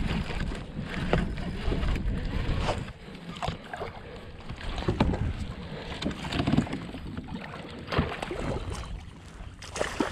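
Wind buffeting the microphone for the first few seconds, then scattered knocks and splashes as a landing net and gear are handled on a plastic fishing kayak.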